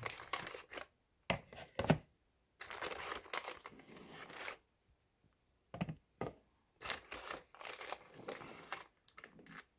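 Clear plastic bag crinkling in several spells as a hand reaches in and pulls out corn dogs, with a couple of knocks as they are set down in a plastic tub.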